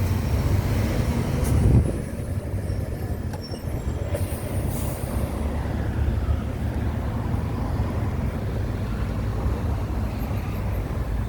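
City bus running with a steady low rumble, with a short hiss about five seconds in.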